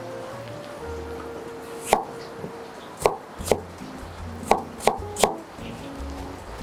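Chef's knife chopping peeled green apples into small cubes on a plastic cutting board: six sharp, irregular knocks of the blade hitting the board, mostly in the second half. Quiet background music plays underneath.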